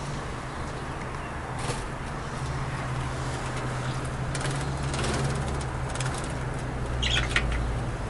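A canary bathing in a water dish, fluttering its wings and splashing in short bursts, the strongest near the end, over a steady low hum.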